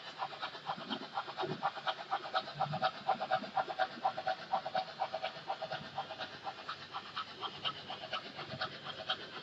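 Märklin HO model train running along the track, giving a rapid, even ticking rhythm of several beats a second that swells to its loudest a few seconds in and eases off near the end.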